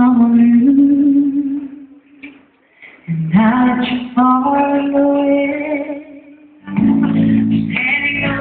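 A woman singing into a handheld microphone, holding long drawn-out notes over sparse backing music. Fuller accompaniment with bass comes in near the end.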